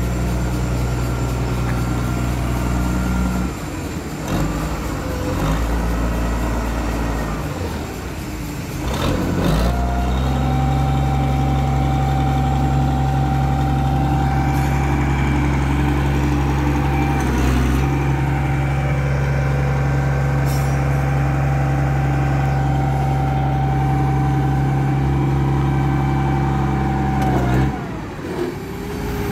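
Forklift engine running as the machine moves about. From about ten seconds in, it holds a higher, steady note with a whine over it while the mast raises the forks, then drops back shortly before the end.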